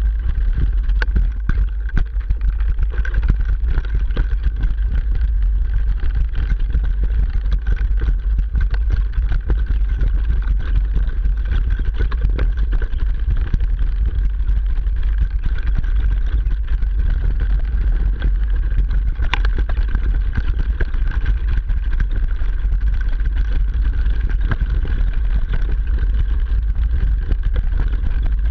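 Riding noise from a 29er mountain bike descending a rocky, leaf-covered trail, picked up through a GoPro Hero 3 fixed directly to the bike. The suspension movement carried through the rigid mount gives a constant heavy rumble, with frequent clicks and knocks as the tyres hit rocks, and a steady higher hum underneath.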